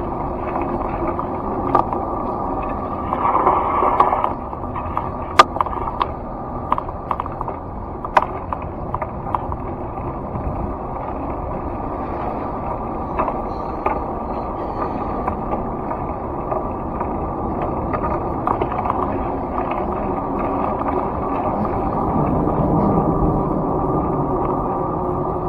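A car driving, heard from inside the cabin: steady road and engine noise, with a run of sharp clicks and knocks a few seconds in and a slightly louder low rumble near the end.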